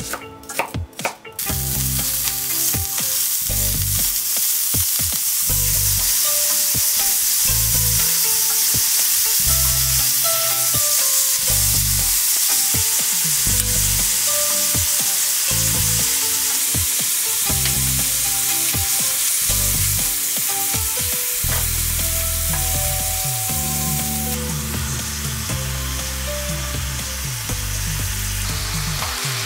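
A chef's knife chops onion on a wooden cutting board for about the first second. Then ground beef sizzles steadily in a hot frying pan, stirred now and then, and the sizzle eases slightly late on.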